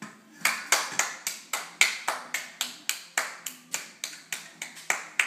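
Children clapping their hands in a steady rhythm, about four sharp claps a second, starting about half a second in.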